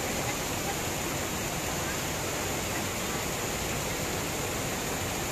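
Steady hiss of heavy rain, with water pouring off the eaves and the rush of a flooded creek.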